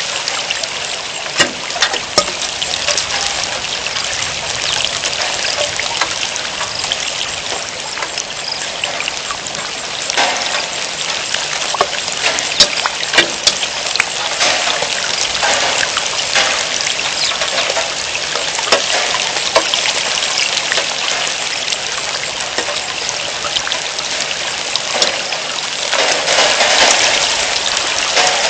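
Rain falling steadily, a dense hiss with scattered sharp drop impacts, slightly heavier near the end.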